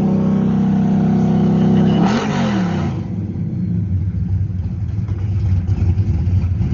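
383 stroker V8 exhaust through 3-inch pipes, Flowmaster Super 10 mufflers and turn-downs at the rear axle: held at high revs, then about two seconds in the revs fall away, and it settles into a loud, uneven idle rumble.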